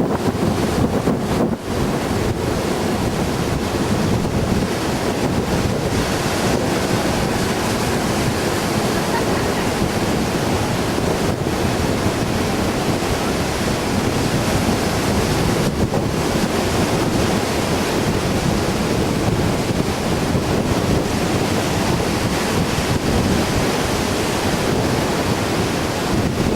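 Fierce wind buffeting the microphone over heavy surf breaking on the beach: a steady, dense rush of noise.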